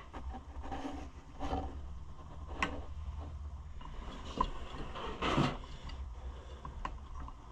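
Light clicks and small knocks of chainsaw engine parts being handled as the cylinder is worked down over the piston rings, with a longer rustle a little past halfway.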